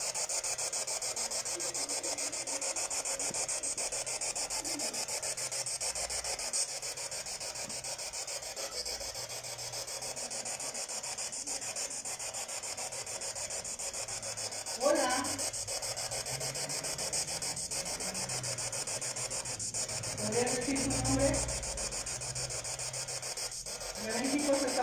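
Handheld ghost box (spirit box) radio scanning: a steady hiss of radio static with a fast, even flutter, broken by a few brief voice-like snatches about two-thirds of the way in and again near the end, heard as possible spirit voices (psicofonías).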